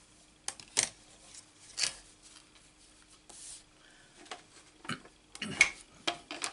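Clear acrylic cutting plates clacking as they are stacked and handled, a few sharp knocks spread out, with the loudest thump near the end as a die-cutting machine is set down on the table.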